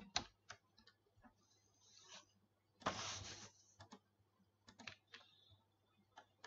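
Scattered single clicks from a computer keyboard and mouse, with a brief hiss about three seconds in, over a faint low hum.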